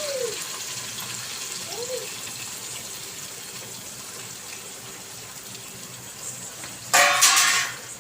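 Onions and mint sizzling in hot oil and ghee: a steady frying hiss that slowly fades, with a loud burst of noise lasting under a second near the end.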